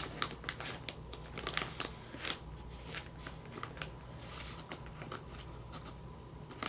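Sheets of paper planner stickers being flipped through and handled: light papery rustles and small taps, busier in the first couple of seconds, then sparser.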